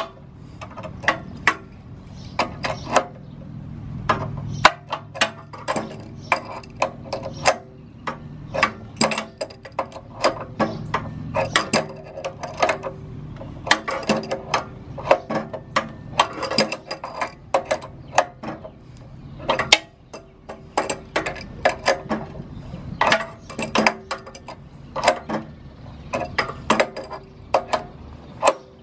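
Adjustable wrench clicking and clinking against the brass unloader valve on a pressure washer pump as the fitting is unscrewed a bit at a time, the wrench being turned and repositioned: many short, sharp metal clicks at an uneven pace.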